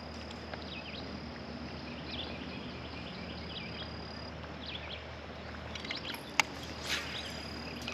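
Riverside outdoor ambience: a steady hiss with a thin, high insect drone that stops a little past halfway, and scattered short bird chirps. There is a single light knock about six and a half seconds in.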